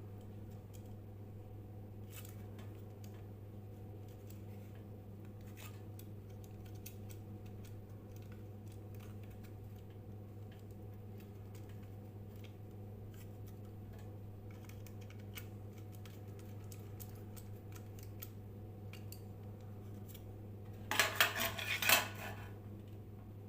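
Steady low electrical hum, with scattered light clicks of handling. About a second and a half before the end comes a short, loud burst of metal parts clattering.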